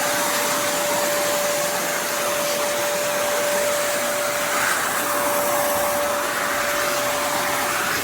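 Kärcher WD 2 Plus wet and dry vacuum cleaner running steadily: an even rush of air with a steady motor whine.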